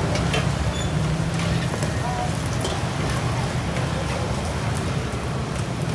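Steady street background noise with a low hum, over which come light rustles and a few faint clicks as crisp fried chicken skin is scooped with a gloved hand into a stainless steel bowl.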